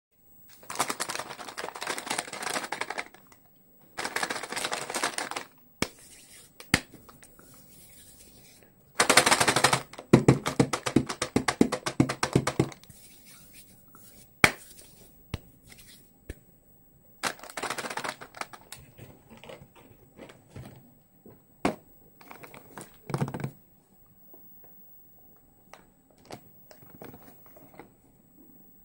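Plastic candy wrappers crinkling and rustling as the packets are handled, in several short bursts. A louder run of rapid sharp taps and clicks comes about nine to thirteen seconds in, and scattered single taps follow.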